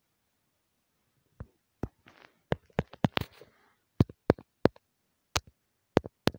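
A series of sharp clicks and knocks, about a dozen at uneven spacing, beginning about a second and a half in, with a faint rustle between some of them.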